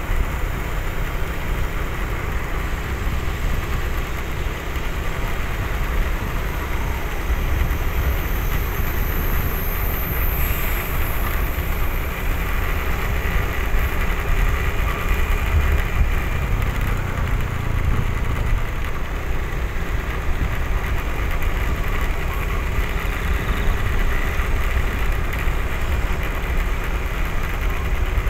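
Steady low rumble of a vehicle travelling along a road: engine, tyre and wind noise on the microphone, unchanging throughout.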